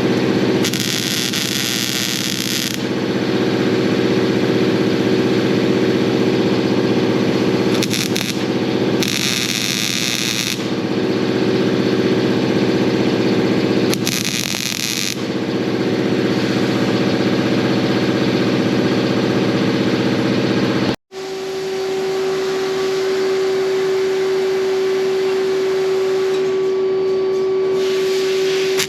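Workshop machinery running with a steady hum, broken four times by short bursts of hiss. About two-thirds of the way through the sound cuts off abruptly and gives way to a steady, single-pitched machine whine.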